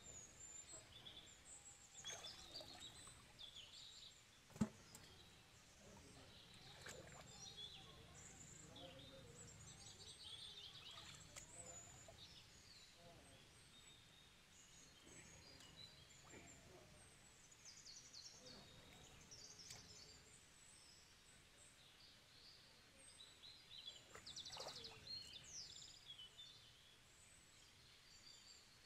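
Quiet rural background with faint, scattered high chirps of small birds, and one short sharp knock about four and a half seconds in.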